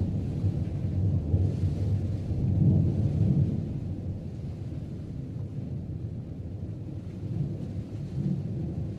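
Thunder rumbling in a low roll that swells to its loudest about three seconds in, then eases off to a lower, steadier rumble.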